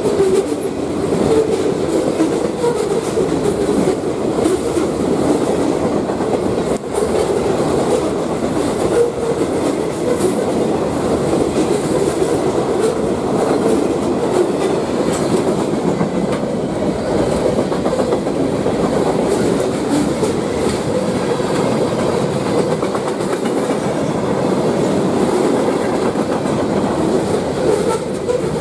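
Mixed freight cars (boxcars, a tank car, covered hoppers) rolling past: the steady noise of steel wheels running on the rails.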